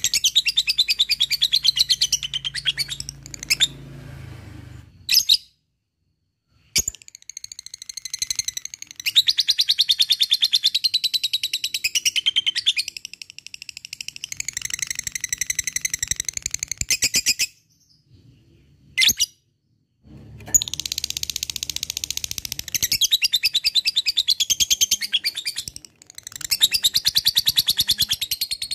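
Lovebird chattering in its long, very fast 'ngekek' trill, rapid high notes run together in long runs, with two short breaks, about five and eighteen seconds in.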